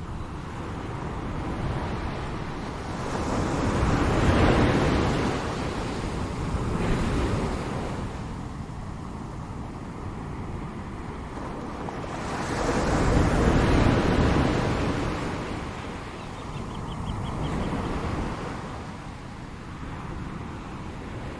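Ocean surf: waves rolling in and breaking, the sound swelling and ebbing, with two large breakers about nine seconds apart and smaller ones between.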